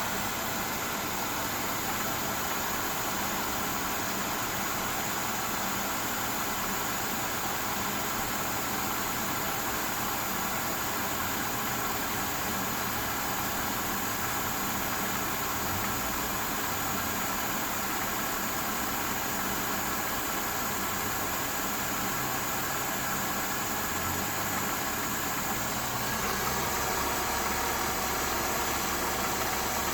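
Mercedes-Benz E350 W212's M272 V6 engine idling steadily with a ticking, knocking clatter whose source the owner is trying to find; it does not rattle from a cold start. Near the end the low drone grows a little stronger.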